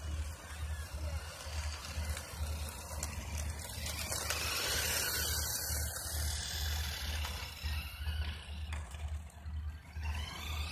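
Toy radio-controlled monster truck driving on an asphalt path: its small electric motor whirs and its plastic wheels rattle and scrape. The sound is loudest midway, under a steady low pulsing rumble.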